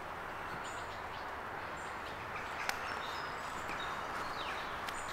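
Birds chirping in short, high calls over a steady outdoor background hiss, with a single sharp click about two and a half seconds in.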